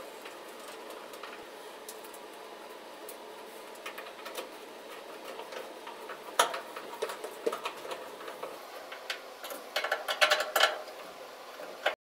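Light scattered clicks and taps of a Phillips screwdriver and screws being driven back into a top-load washing machine's lid-switch mounting, with one sharper tap about halfway and a quick run of ticks near the end.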